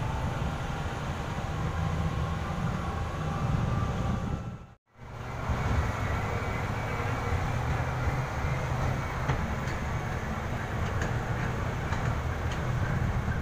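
Steady low rumble of a vehicle driving over a rough dirt mine road, engine and tyres heard from inside the vehicle. The sound breaks off for a moment about five seconds in, then carries on.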